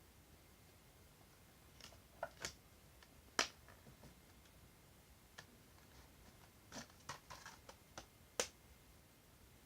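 Light handling of objects: scattered sharp clicks and taps with a little rustling, starting about two seconds in and strongest around three and a half and eight and a half seconds.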